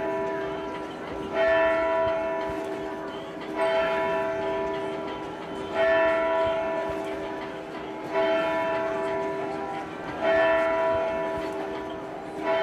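A bell tolling steadily, about one stroke every two seconds, each stroke ringing on and fading until the next, with a lower steady bell tone underneath.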